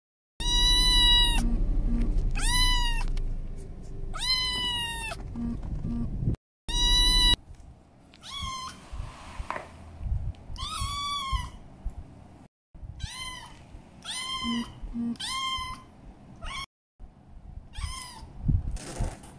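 Golden British shorthair kitten meowing repeatedly: about ten short mews, each rising then falling in pitch, the first four loudest.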